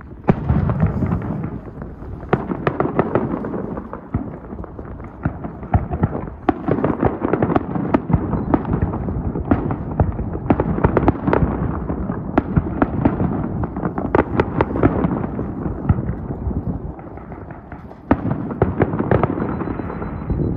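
Aerial fireworks display: shells bursting one after another in a dense run of booms and crackle, with a heavier burst just after the start and another about eighteen seconds in.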